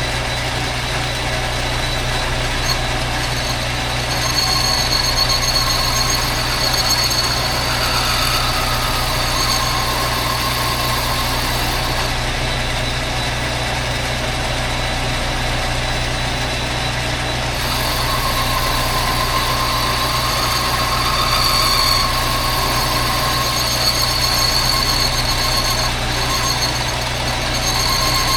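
Metal lathe running with a boring bar cutting the inside of a motorcycle cylinder: a steady machine hum with a high-pitched squeal from the cut that comes and goes, strongest from about 4 to 12 seconds in and again from about 18 seconds to the end.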